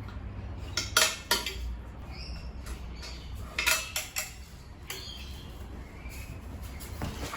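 Metal hand tools and parts clinking and knocking now and then, a few separate strikes with a short ring, over a low steady hum.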